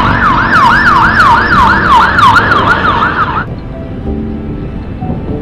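Emergency-vehicle electronic siren in fast yelp mode, its pitch sweeping up and down about three and a half times a second. It cuts off suddenly about three and a half seconds in, leaving road noise.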